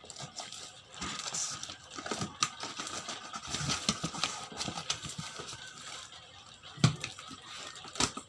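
A parcel's packaging being opened by hand: irregular rustling and scraping with scattered sharp clicks, and one louder knock about seven seconds in.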